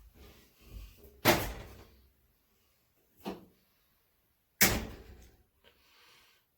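Knocks from a replacement heating element being worked into the element port of an electric water heater tank: two loud, sharp knocks about three seconds apart, with a softer one between them.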